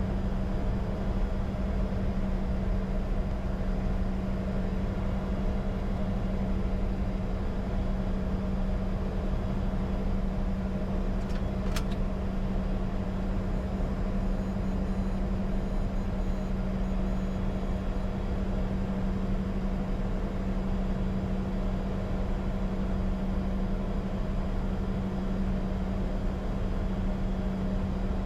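Steady cockpit drone of a Bombardier Challenger 605 taxiing with its engines running: a constant low hum over rumble, with one brief click about twelve seconds in.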